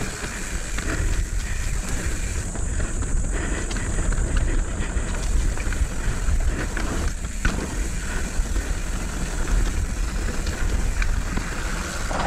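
Mountain bike descending a dirt trail: steady wind noise on the microphone over tyre rumble and bike rattle, with a few sharp knocks.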